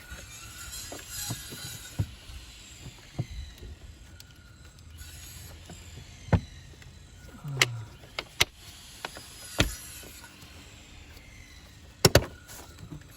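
Scattered clicks and knocks of the plastic engine air filter housing being handled and fitted back together, ending in a sharp double click near the end as a part snaps into place.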